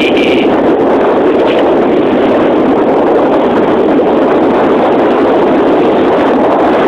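Steady, loud rush of wind buffeting a phone's microphone while skiing fast downhill through powder snow.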